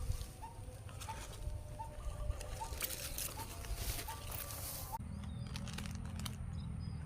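A bird repeats a short rising call about every 0.7 seconds over a low rumble and scattered sharp ticks. The calls stop about five seconds in, where the background changes abruptly.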